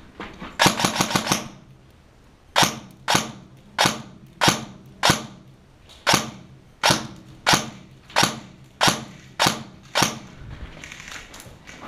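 Gas blowback airsoft gun firing: a quick string of about six shots near the start, then about a dozen single shots a little over half a second apart, each with a short sharp crack.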